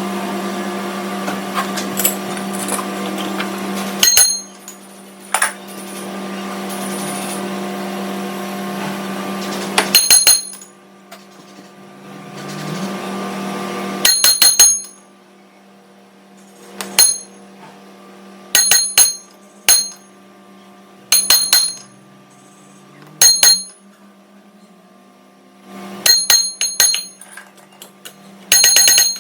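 Metal lathe running with a steady hum. In the first half a noisy cutting sound comes and goes, and through the second half short ringing metal clinks come every couple of seconds.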